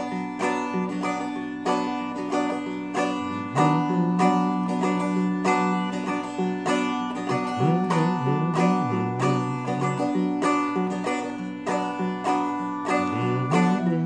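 A Seagull Merlin strummed in a steady thumb-and-strum rhythm, two to three strokes a second, playing the chorus chords, with the player humming the melody low underneath it.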